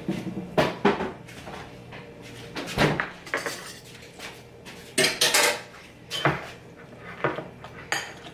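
A spoon clinking and scraping against a bowl in irregular strokes, stirring mayonnaise into a bowl of Oreo Blizzard ice cream.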